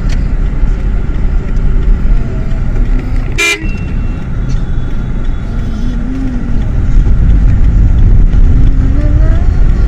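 Riding a motorcycle through city traffic: a loud, steady low rumble of wind and engine, with a short, sharp horn toot about three and a half seconds in.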